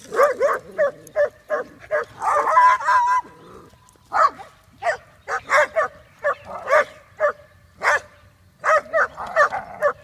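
Dogs barking over and over in short, sharp barks, about two or three a second, with one longer drawn-out call about two to three seconds in and a brief pause after it.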